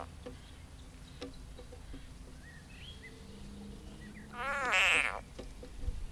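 Edible frog held in a grass snake's jaws giving one loud distress scream, a drawn-out cry of nearly a second that slides down in pitch, about four and a half seconds in.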